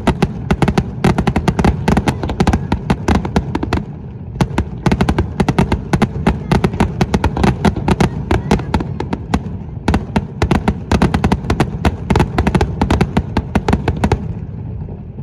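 Aerial fireworks display: a fast, dense barrage of shell bursts and crackling reports over a continuous low rumble, easing briefly about four and ten seconds in and dropping away near the end.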